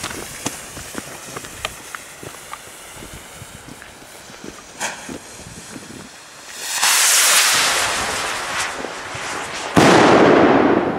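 Firework fizzing and crackling with scattered sharp pops. About seven seconds in comes a loud rushing hiss, then a sudden loud bang near the end that dies away over about a second.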